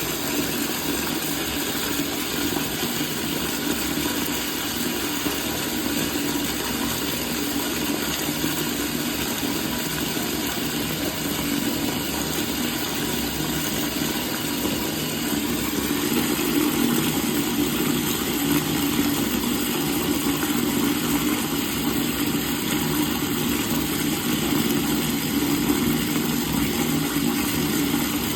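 Water running steadily from a faucet, growing a little louder about halfway through.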